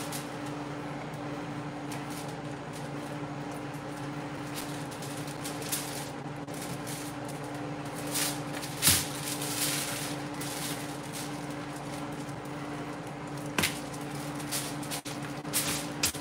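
Long slicing knife cutting through racks of smoked ribs on a foil-lined tray, with crinkles of foil and a few sharp knocks of the blade against the tray, the loudest about nine seconds in, over a steady low hum.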